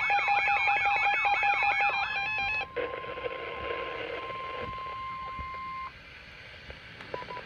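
NOAA Weather Radio Emergency Alert System signal: the buzzy, warbling digital SAME header data burst, then the steady 1050 Hz warning alert tone, which cuts off abruptly after about three and a half seconds. Quieter radio hiss follows, with a brief beep near the end.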